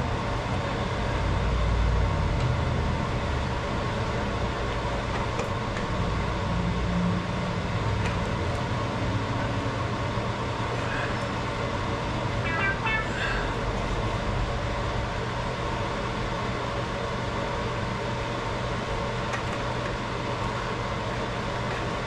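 Steady low mechanical hum, with a few faint clicks and a short chirping sound about halfway through.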